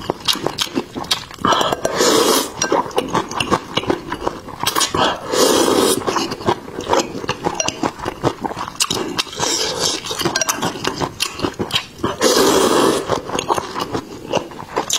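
Close-miked eating of rice noodles in soup: four long, noisy slurps about 2, 5, 10 and 12 seconds in, with wet chewing and wooden chopsticks clicking against the bowl in between.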